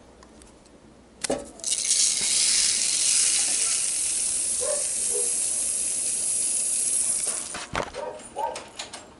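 Desiccant granules pouring out of a double-glazed window's aluminium spacer bar into a plastic bowl. The pour starts about a second in and runs as a steady hiss for some six seconds, then ends in a few scattered clicks and ticks as the last beads drop out.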